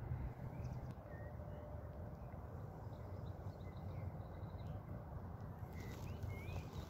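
Low wind noise on the microphone, with a few faint, short bird chirps scattered through it.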